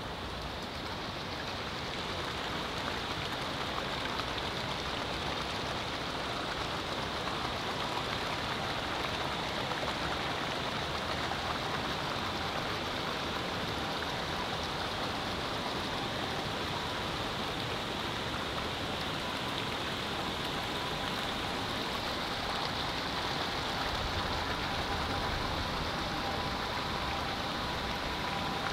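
Steady rush of running water in a Japanese garden, an even hiss with no breaks. A faint high steady tone sits underneath, a little clearer near the end.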